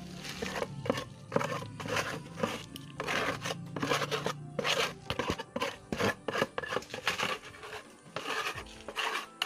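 Small steel trowel scraping and spreading wet cement mortar across a plastic ornament mould, in repeated short strokes about two a second.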